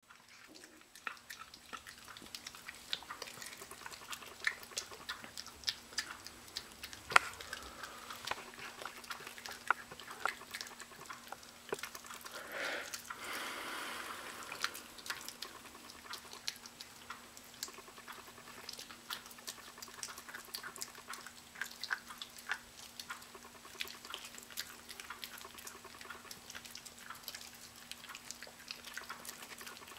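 Miniature Pinscher puppy chewing and mouthing a piece of raw chicken: a string of wet, smacking clicks with a short, denser scuffle about halfway through. A faint steady hum runs underneath.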